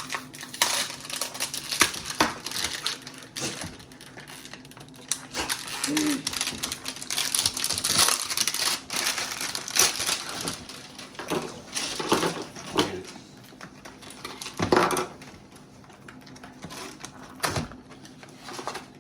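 Toy packaging being opened by hand: crinkling and rustling with irregular clicks and scrapes.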